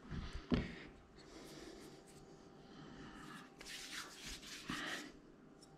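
Faint handling noises of a carburettor and hand tools on a cloth-covered bench: two light knocks in the first second, then soft rubbing and rustling.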